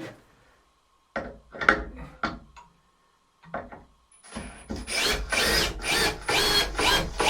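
Hand saw cutting through wood. A few separate scrapes and knocks come first, then about four seconds in it settles into fast, even rasping strokes, about three a second.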